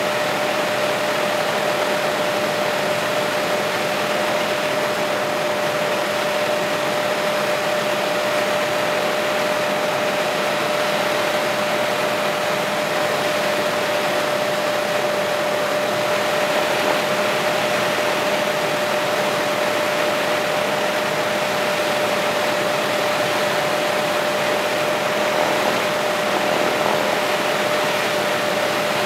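Helicopter in flight heard from inside the cabin: a steady rush of engine and rotor noise with a constant whine running through it.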